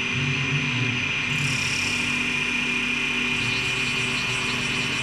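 Three-spindle CNC wood lathe running with its wood blanks spinning: a steady machine hum with a high whine. A higher hiss joins about a second and a half in.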